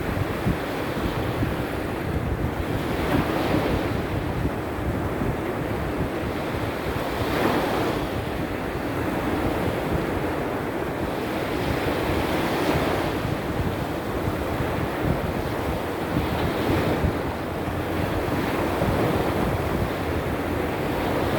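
Sea surf breaking on the shore in a small storm, a continuous wash with waves cresting every few seconds, and wind buffeting the microphone.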